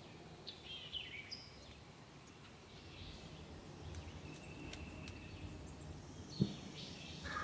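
Songbirds chirping over a quiet field background, with a single sharp low thump about six seconds in. A wild turkey gobble breaks out right at the end.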